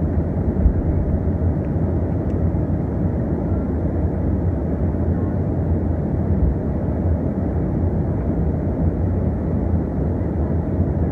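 Airplane engine noise: a steady, low rumble with no change in loudness.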